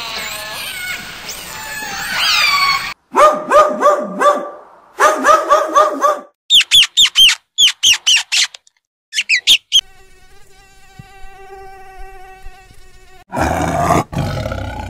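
A string of different animal calls: an orca's high, sliding whistles and squeals, then a run of short repeated pitched calls, then a mouse's high squeaks in quick succession. A quieter steady wavering tone follows, and a tiger roars near the end.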